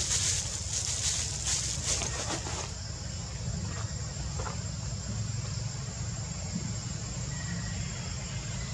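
Outdoor ambience: a steady low rumble underneath, with insects droning high and steady; a patchy high hiss in the first couple of seconds gives way to the even insect drone.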